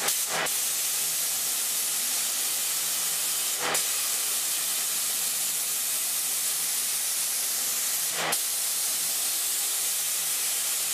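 Steady hiss of compressed air blowing through a Harbor Freight HVLP paint spray gun during spraying, with three brief louder surges and a faint low hum beneath.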